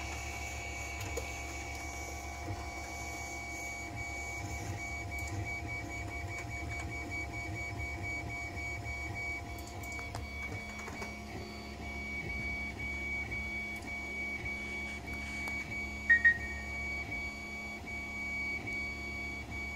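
Creality Ender 5 3D printer running at the start of a print: its fans and stepper motors make a steady whirring hum with constant high whines and a few faint clicks. Two short, loud, high beeps sound about three-quarters of the way through.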